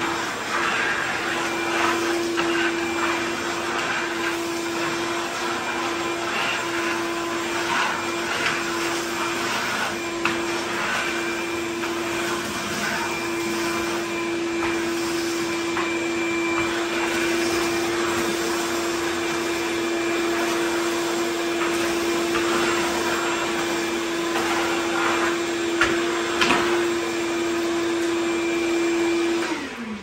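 Ridgid 16-gallon wet/dry shop vacuum running with a steady whine and rush of air, the hose picking up bits of debris off the garage floor in scattered short rattles. Near the end the motor winds down.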